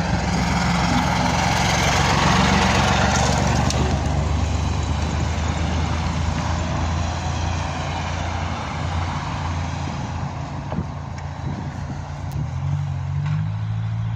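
Vehicle noise beside a snowy road: a trolleybus's steady low electric hum with road and tyre noise that swells about two seconds in and slowly fades.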